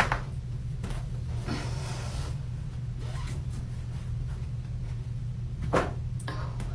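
Sharp cracks of a back being cracked: one right at the start and another, with a smaller pop just after it, about six seconds in, over a steady low hum.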